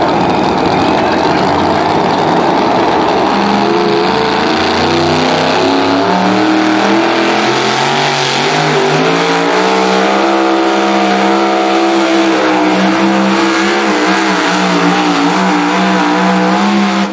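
Super modified 2WD pulling truck's supercharged engine running hard under load as it drags the pulling sled, its pitch climbing in steps over the first several seconds and then holding high and steady.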